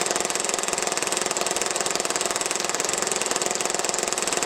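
Action Army AAP-01 gas blowback airsoft pistol firing on full auto in one unbroken burst, a very rapid, even rattle of shots with the slide cycling.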